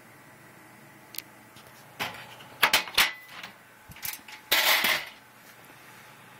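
A series of sharp clicks and knocks of hard objects being handled: a single click about a second in, a cluster of knocks a second later, and a short rattling clatter about four and a half seconds in.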